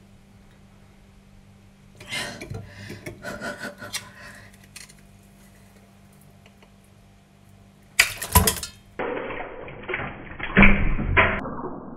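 A large raw oyster being shucked with an oyster knife: the shell scrapes and clicks as the knife is twisted into the hinge, then a loud crack just after eight seconds in as the shell is forced apart, followed by rough grating and knocking of the shell halves.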